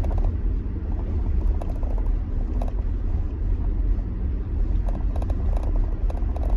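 Steady low rumble of a car driving on snowy roads, heard from inside the cabin, with faint short clicks scattered through it.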